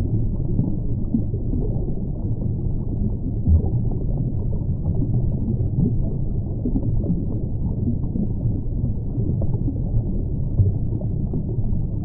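Underwater ambience: a steady low rumble of water, with a few soft bumps.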